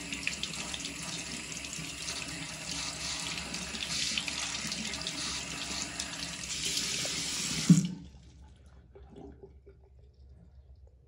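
Bathroom faucet running, its stream splashing over a cupped hand into a ceramic sink. Near the end a short thump, then the water stops abruptly.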